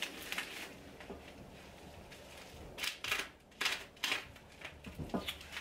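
Plastic bubble wrap crinkling and rustling in irregular bursts as it is pulled open by hand.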